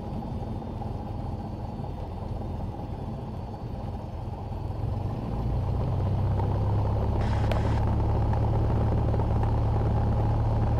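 Cessna 172's four-cylinder piston engine and propeller running at low power, heard from inside the cockpit during the landing rollout and taxi. The engine note grows louder about five seconds in and then holds steady. A brief hiss comes about seven seconds in.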